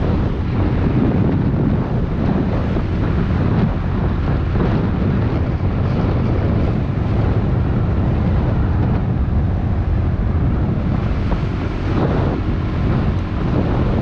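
Steady wind rush buffeting a helmet-mounted microphone while riding a small automatic scooter at speed, with the scooter's engine running underneath.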